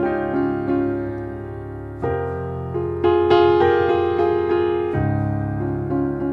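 Background piano music: a slow piece of sustained chords and single notes, with the chord changing about two seconds in and again about five seconds in.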